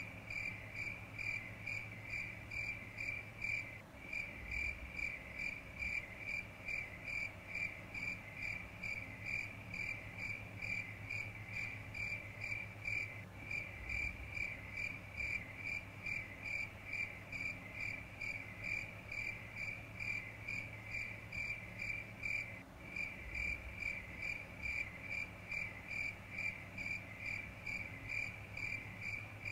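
Cricket chirping in an even, unbroken rhythm, about three chirps a second, over a low steady hum.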